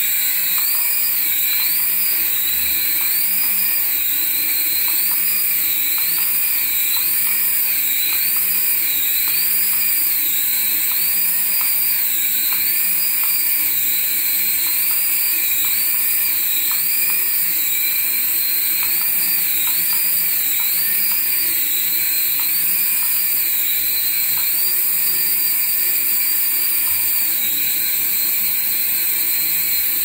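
Small electric motors and spinning rotors of a toy coaxial RC helicopter whining at a high pitch. The pitch swells up and down about once a second as the throttle is worked, then holds steady near the end.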